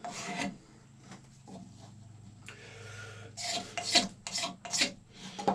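Pocket knife blade held vertical and pushed along a water-softened horn, scraping off shavings. One stroke at the start, fainter scraping through the middle, then a quick run of about six short strokes near the end.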